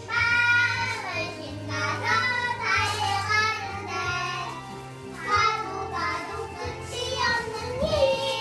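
A child singing a melody in sustained phrases over a musical accompaniment with held bass notes.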